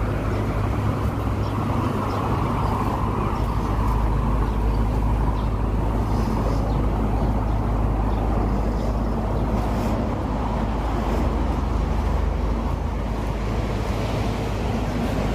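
Steady outdoor background noise with a constant low rumble, like distant road traffic, unbroken throughout.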